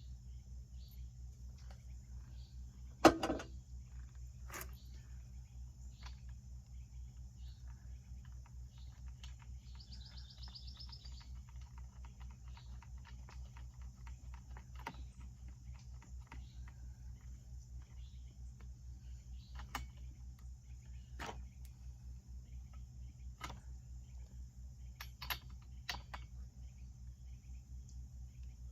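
Crickets trilling steadily over a low pulsing hum, with scattered sharp clicks and knocks. The loudest knock comes about three seconds in, and a brief chirp sounds about ten seconds in.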